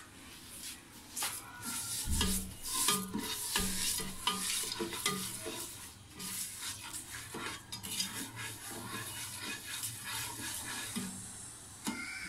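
Nylon slotted spoon stirring milk and sugar in a nonstick pot, with irregular scrapes and knocks against the pan's bottom and sides, busiest in the first few seconds. The sugar is being stirred in to dissolve into a syrup.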